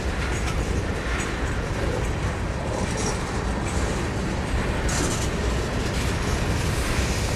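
Covered hopper cars of a grain train rolling past, a steady rumble of steel wheels on the rails with a few brief higher-pitched streaks of wheel noise, the plainest about five seconds in.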